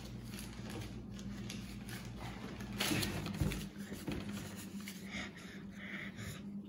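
A paper note being handled and unfolded: a loud rustle about three seconds in, then softer crinkles near the end, over a steady low hum.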